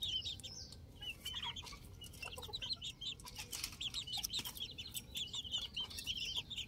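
Young black hens peeping and chirping softly, a rapid run of short high notes that carries on throughout.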